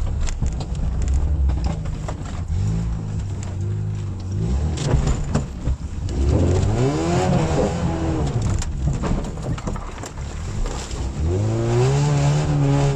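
Lada Niva's engine revving hard under load through deep mud and ruts, the revs rising and falling and surging twice, about six and eleven seconds in, with scattered knocks from the vehicle over the rough ground.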